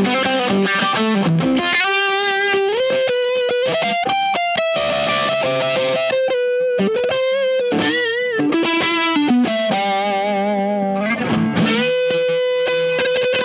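Electric guitar through a No Mask fuzz pedal boosted by the Wyong Rd Electronics Keris, playing single-note lead phrases with sustained, bent and wavering notes. The tone is big, blown out and fuzzy.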